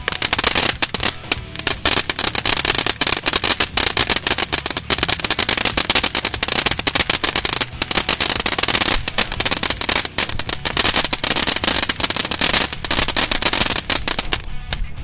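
Black Cat Energizer firework fountain erupting: a sudden start, then a dense, continuous crackle of popping sparks over a hiss. The crackle eases briefly near the end.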